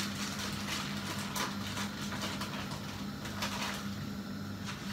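Plastic bread bag rustling and crinkling a few times as slices of bread are pulled out, over a steady low hum.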